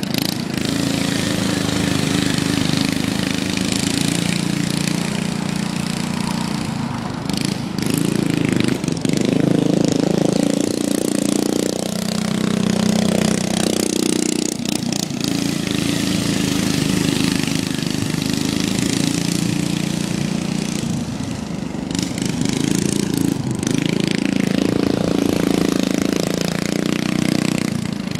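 Racing lawn mower's engine running, its pitch rising and falling as it is throttled up and down.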